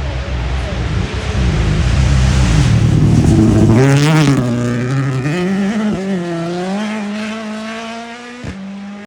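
Rally car coming through at speed with a loud rush of noise, passing about four seconds in, then its engine revving higher as it accelerates away and fades.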